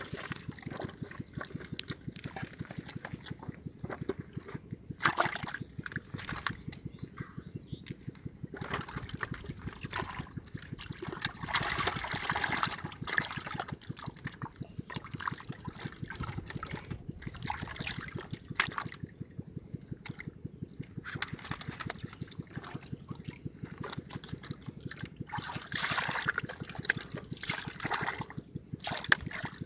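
A bare hand scooping wet mud and muddy water out of a flooded hole in the ground: irregular squelching and sloshing, with a few louder scoops.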